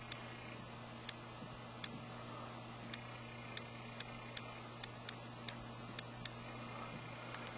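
About a dozen sharp, light clicks at an uneven typing pace as letters are tapped on an iPod touch's on-screen keyboard, over a faint steady hum.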